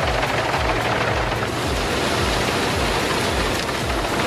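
Self-propelled wood chipper shredding brush and blowing out chips, a loud, steady rushing noise. A low beat thumps about twice a second underneath.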